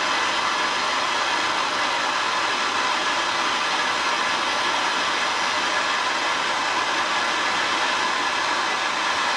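Gas torch flame burning with a steady hiss, heating a steel joint for silver soldering.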